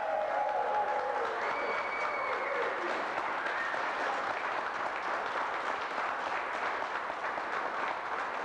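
A crowd applauding and cheering, with a few drawn-out shouts in the first few seconds.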